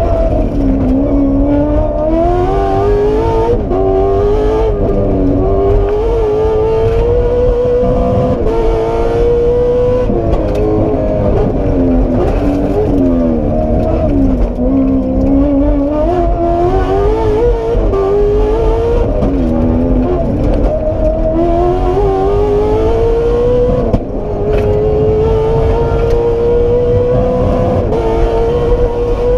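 Aston Martin Vantage rally car's engine, heard from inside the cockpit, at full stage pace: it revs up hard, drops on each gear change and lift for a bend, then climbs again, with a long pull through the gears in the last several seconds.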